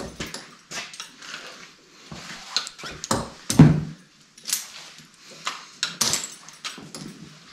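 Metal clinks and jangles of halter and lead-rope hardware as a horse is handled, over a run of scattered knocks. About halfway through a horse gives a short low snort, the loudest sound.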